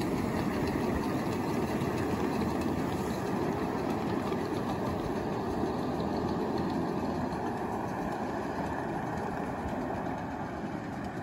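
Ridable miniature train running along its track, a steady mechanical rumble that eases off slightly near the end as it moves away.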